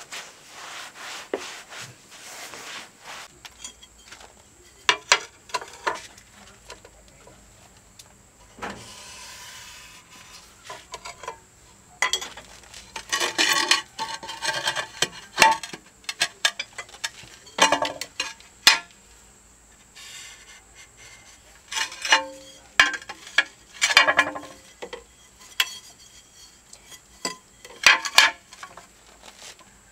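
Hand tiling work: a trowel scraping and clinking against ceramic tiles and mortar in irregular strokes, with short ringing knocks in clusters.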